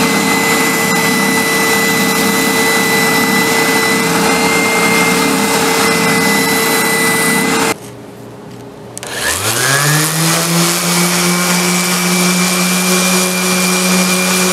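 Benchtop spindle sander running steadily while the corners of an oak hammer handle are sanded against its drum; it breaks off about eight seconds in. A second later a random orbital sander starts up, its pitch rising quickly and then settling into a steady run.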